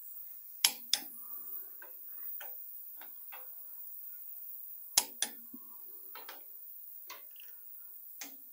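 Click-type torque wrench clicking as cylinder head bolts reach their set torque: two sharp clicks in quick succession about a second in, and another pair about five seconds in. Fainter ticks and clinks come between.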